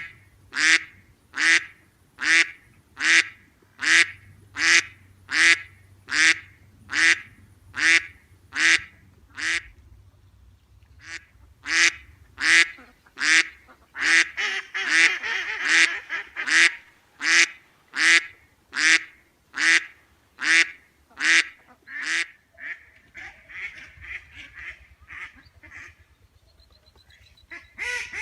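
Duck quacking in a long, evenly spaced series, about four quacks every three seconds. There is a short break about ten seconds in, overlapping quacks a little after the middle, and softer, quicker quacks near the end.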